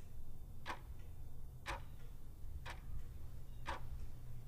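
Steady ticking, one sharp tick about every second, over a low steady hum.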